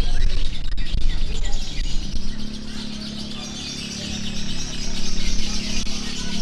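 Many caged lovebirds chattering and chirping at once in a dense, overlapping chorus, which grows thicker about halfway through. A low steady hum runs underneath from about two seconds in.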